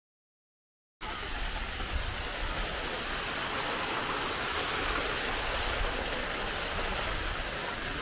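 Steady rushing roar of a tall waterfall, the 70-metre falls at Edessa, pouring right beside the listener. It cuts in suddenly about a second in, after dead silence.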